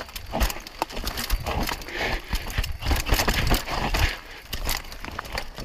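Mountain bike clattering down a rocky trail: irregular knocks and rattles as the wheels drop over rocks, over a hiss of tyre noise on loose ground.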